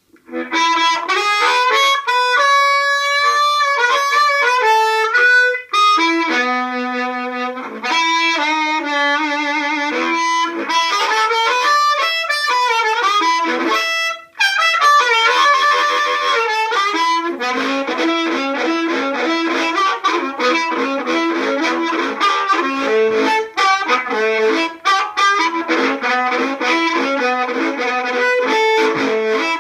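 Diatonic harmonica in A played into a microphone and amplified through a small home-built toolbox amp, a Smokey Amp circuit driving an old 4-inch Mercedes car speaker. Long held notes and chords at first, then a fast rhythmic chugging pattern from about halfway through.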